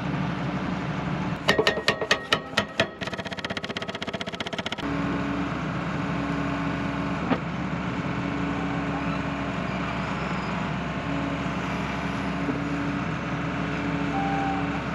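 Tracked excavator's engine running while its hydraulic breaker hammers a steel bar into the ground. About a second and a half in come some eight sharp separate blows, then a fast rattling run of blows that stops about five seconds in. The engine and hydraulics then run on steadily with an on-and-off whine.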